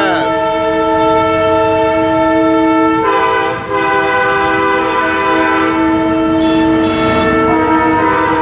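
Diesel trucks' horns sounding loudly in long held multi-note chords, honked in answer to a pulled-arm signal. The chord changes about three seconds in, with a brief break just after, and changes again near the end.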